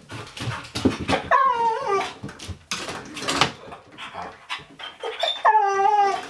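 Dog whining twice, each call drawn out and falling in pitch, with short rustling noises between.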